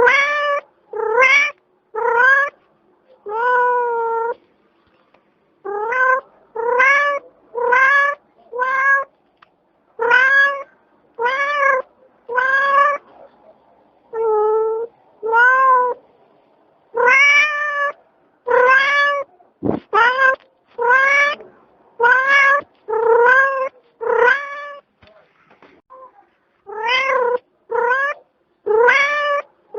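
A cat meowing over and over: short meows that rise and fall in pitch, about one a second, with a few brief pauses between runs.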